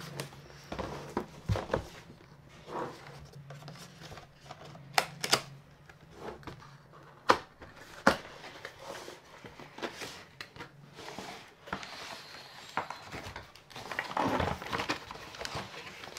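A cardboard keyboard box being opened and handled: scattered taps, knocks and scrapes, with a few sharper knocks in the middle. A spell of rustling comes a couple of seconds before the end as the keyboard is lifted out of the box.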